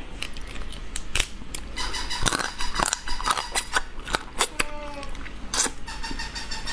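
Cooked crab being pulled apart and eaten by hand close to the microphone: a rapid run of sharp cracks and snaps of shell, mixed with wet mouth sounds as the meat is eaten.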